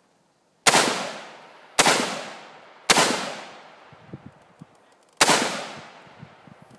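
Rifle firing four shots, the first three about a second apart and the fourth after a pause of two seconds or so, each crack followed by a long echoing tail. A few faint ticks fall between the third and fourth shots.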